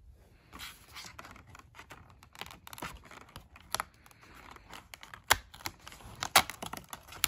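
Fingernails picking at and tearing open a perforated cardboard advent calendar door: a run of scratching and tearing with irregular sharp clicks, the loudest in the second half.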